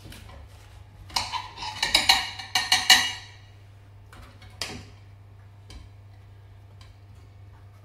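Kitchen knife chopping a large courgette (marrow) on a chopping board: a quick run of knocks and clatter from about one to three seconds in, then a few single knocks about a second apart.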